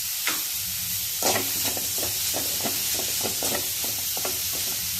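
Chopped onion and carrot frying in oil in a kadai with a steady sizzle, while a spatula stirs and scrapes the pan in a run of quick strokes, about four a second, starting about a second in.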